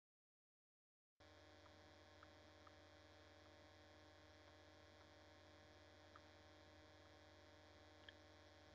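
Near silence: after a second of dead silence, a faint steady electrical hum from the recording, with a few faint ticks.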